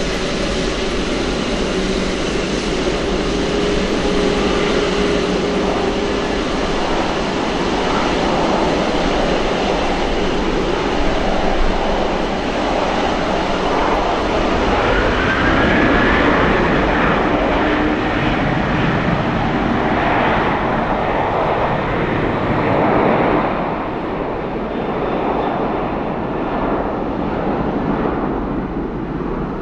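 Jet airliner engines running: a loud, steady rush with faint whining tones that shift in pitch, easing a little in the last few seconds.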